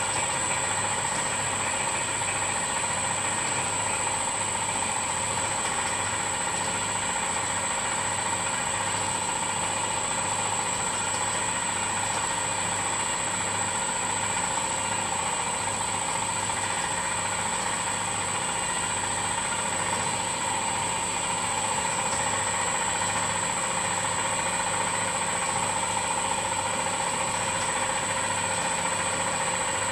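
Boutelje Honey Auger running steadily as it grinds blocks of crystallised honey: an even mechanical hum with a thin high whine.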